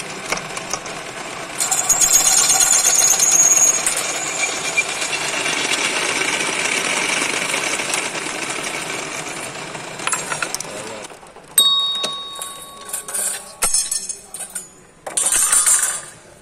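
A drill press running, its twist bit cutting into thin metal plate with a high squeal for a couple of seconds. The drilling stops, then a sharp metal clank rings on with a clear tone, followed by a few more metal clanks and rattles.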